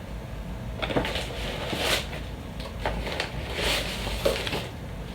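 Softbox lighting kit being unpacked from its cardboard box: irregular rustling and scraping of packaging, with a few light knocks as parts are lifted out.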